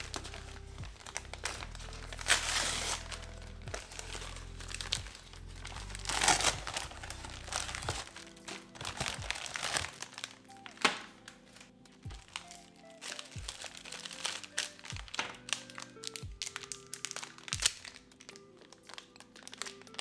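Clear plastic zip bags crinkling as they are opened and handled. The crinkling is loudest in three spells in the first half, and short clicks and taps follow in the second half, all over background music.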